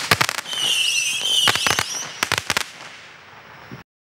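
Black Cat Missiles Base 100-shot fireworks cake firing: a shrill whistle sliding slightly downward, and clusters of sharp cracking reports, three groups in quick succession. The sound cuts off suddenly shortly before the end.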